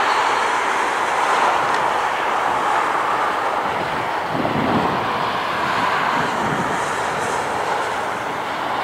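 Boeing 757-200 freighter's twin jet engines at take-off thrust as it lifts off and climbs away: a steady loud roar with a high thin whine that fades out in the first second. A deeper rumble swells about four seconds in.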